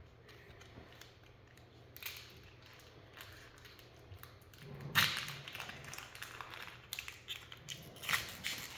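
Foil Pokémon booster pack wrapper being crinkled and torn open by hand, in a few short bursts, the loudest about five seconds in.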